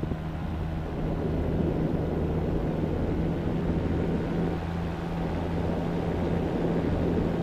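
Minari Stratos 400cc two-stroke boxer-twin paramotor engine and propeller running steadily in cruising flight, a constant low-pitched drone that holds even throughout.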